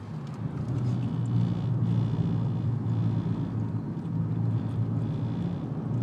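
Car driving, heard from inside the cabin: a steady low drone of engine and road noise that gets a little louder about a second in.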